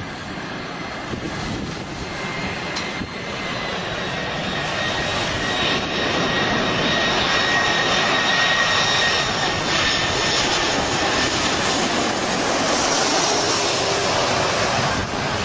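Jet airliner's engines growing steadily louder over several seconds and then holding, a dense rushing noise with a high whine in it that slowly falls in pitch.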